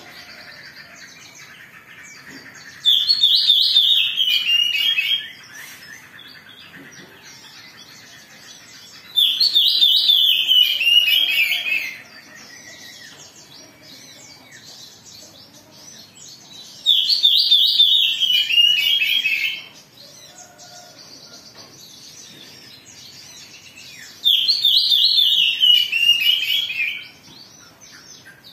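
Oriental magpie-robin (kacer) giving four loud bursts of its agitated song, each about two and a half seconds of rapid notes stepping down in pitch, repeated about every seven seconds. This is the fired-up kacer song played as a lure to set other kept birds singing.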